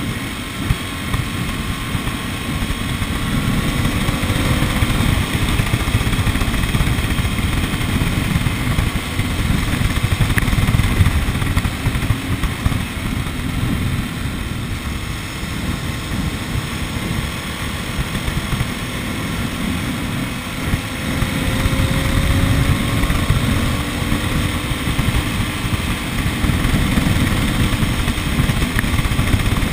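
A vehicle driving along a road: a steady rumble of engine and road noise, with gusty low buffeting like wind on the microphone and a faint engine tone that drifts up and down in pitch.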